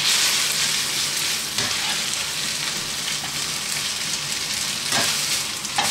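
Pasta with fried vegetables and prawns sizzling steadily in a hot frying pan while being stirred and tossed, with a couple of light knocks.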